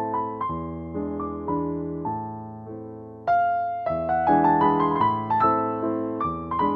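Background piano music. It thins out, then comes back fuller about three seconds in.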